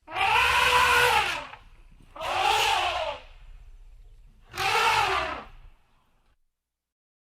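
A large animal calling three times. Each call is harsh and lasts about a second, rising then falling in pitch.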